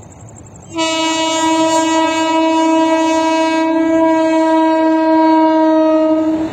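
One long, steady horn blast on a single pitch, starting just under a second in, held for almost six seconds and cut off abruptly.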